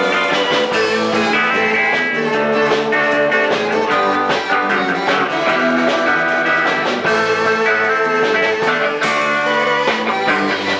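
Rock band playing an instrumental passage, electric guitar prominent over bass and drums, at a steady level.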